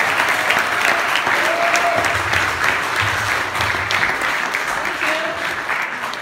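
Audience applauding, a dense steady clapping mixed with a few voices, fading toward the end.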